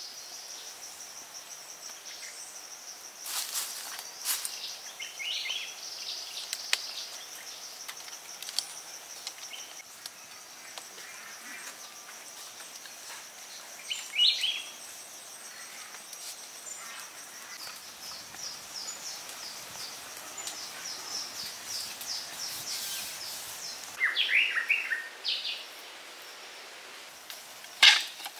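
Forest ambience: a steady high-pitched insect drone with a fine pulse, with short bird calls a few times and a few sharp knocks, the loudest near the end.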